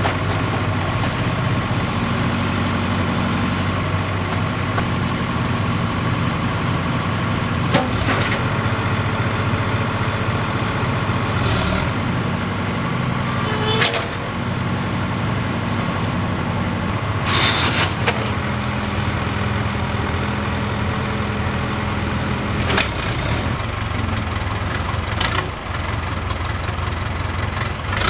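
Case 580K backhoe loader's diesel engine running steadily, with a few short, sharp noises over it.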